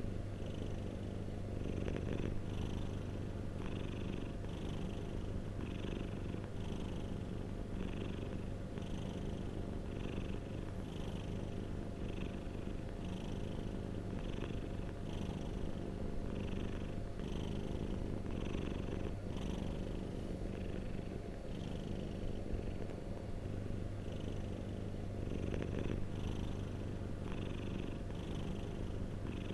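Domestic cat purring steadily: a continuous low rumble.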